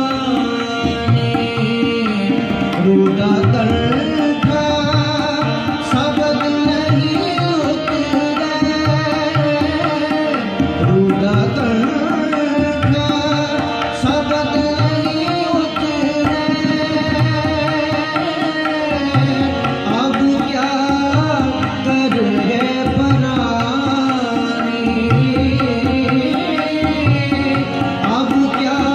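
Harmoniums playing sustained chords and melody with tabla keeping a steady, lively rhythm: Sikh shabad kirtan accompaniment.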